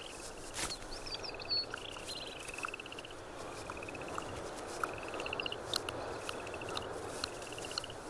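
Buff-breasted sandpipers giving quiet clicking calls: half a dozen short, rapid ticking trills with single sharp clicks between them, from a male in wing-raising courtship display. A steady outdoor ambience runs underneath.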